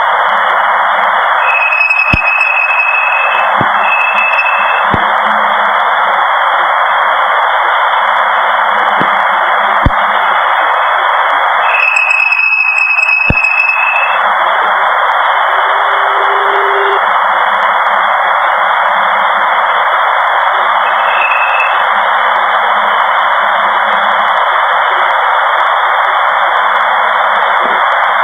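Voyager 2 Plasma Wave Science instrument recording from the Saturn flyby, played as sound: a loud, steady radio-like hiss with a steady higher tone above it, from Saturn's magnetosphere. Short high tones switch on and cut off abruptly several times, with a few sharp clicks; these are interference from the spacecraft itself.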